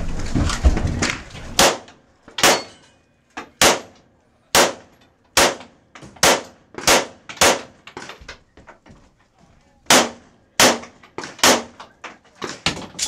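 A handgun fired in a rapid string of about fifteen shots, the gaps running from about half a second to a second, with a pause of nearly two seconds before the last few.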